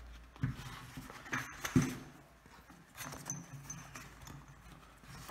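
Cardboard box of rifle cartridges being handled on a tabletop: a few light knocks and scuffs as it is lifted, tilted and set down.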